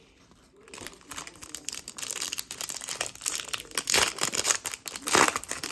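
Trading-card pack wrapper crinkling and tearing as it is opened. It starts about a second in, with the loudest crackles near the end.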